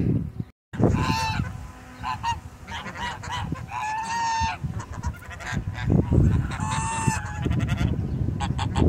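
A flock of domestic geese honking, calls coming one after another and overlapping, with longer drawn-out honks about four and seven seconds in.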